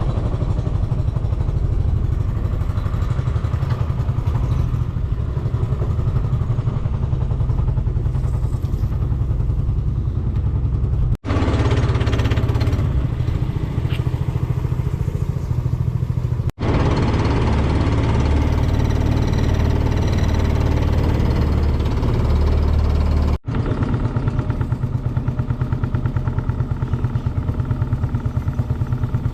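A small engine running steadily with a low, rapid pulse. It drops out abruptly three times where the footage is cut, and picks up again at once each time.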